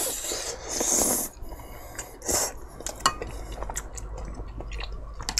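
Noodles from a bowl of tteokbokki slurped up in two long sucks, another shorter slurp a couple of seconds later, then chewing with scattered light clicks and clinks of utensils against dishes.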